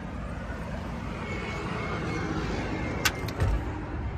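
Motor vehicle running, with a steady low rumble that slowly gets louder. About three seconds in there are two or three sharp clicks and a short low thump.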